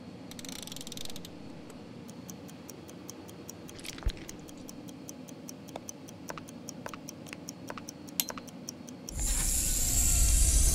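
Clock timer of a time bomb ticking steadily, about four ticks a second, with a few louder clicks among the ticks. About nine seconds in, a loud rushing noise swells up over it.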